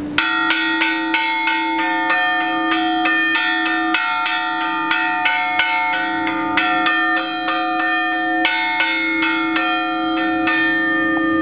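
Bronze church bell clamped in a tuning machine, struck over and over with a spanner, about three strikes a second, building a sustained ring of several steady overtones. It sounds a little dead with the clamps on. The bell is being test-struck during tuning to check its pitch.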